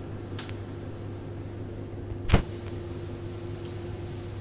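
A steady low electrical hum, with one sharp knock a little over two seconds in and two faint ticks.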